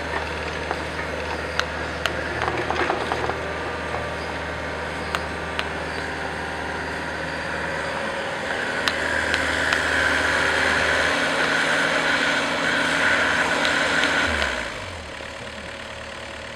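Construction machinery engine running steadily on a paving site, with scattered sharp clinks of stone setts being laid. A louder, higher whirring noise comes in about nine seconds in and stops suddenly near the end, and the engine hum drops at the same moment.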